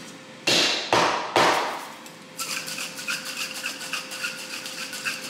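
Three loud knocks on a two-piece metal cocktail shaker, then the shaker being shaken hard: a fast, even rattle of the drink's liquid and muddled jalapeño inside the metal tins, about five or six strokes a second.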